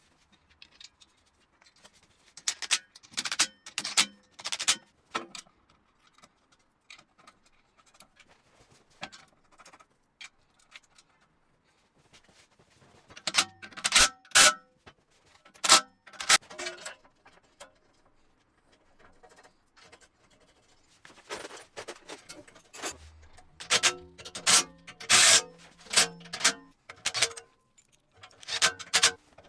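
Steel parts of a welding cart clanking and knocking as they are fitted together by hand, with short bursts of a cordless drill-driver running bolts into the steel frame. The knocks come in clusters, the loudest in the middle and toward the end.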